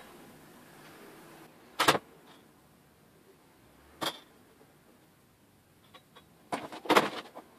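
Short sharp clicks and taps of small metal connectors and a marking tool against an aluminium panel: a double tap about two seconds in, a single one about four seconds in, and a quicker, louder cluster near the end.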